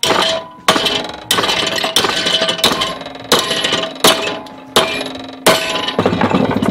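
A 2-pound hammer striking a 1/8-inch aluminum bar clamped in a steel bench vise, bending the bar over at a right angle. There are about ten evenly spaced blows, roughly one every 0.7 seconds, and each one rings briefly.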